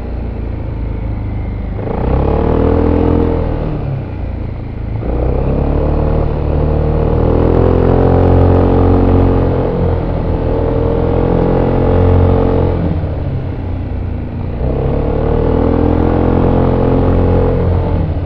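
Voge SR4 Max scooter's 350 cc single-cylinder engine on its stock exhaust, heard from onboard while riding: the revs swell three times as the throttle opens and ease off in between.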